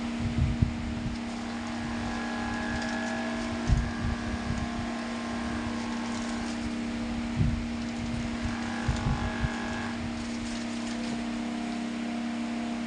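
Homemade table fan driven by a 12 V DC motor, running at a steady speed: a constant motor hum with airflow noise, broken by a few short low thumps.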